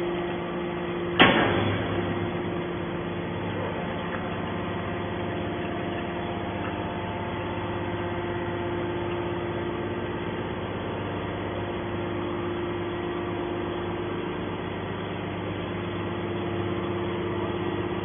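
TCM hydraulic scrap metal baler running: a sharp bang about a second in, then the steady hum of its hydraulic power unit as the ram pushes the compressed scrap bale out of the press.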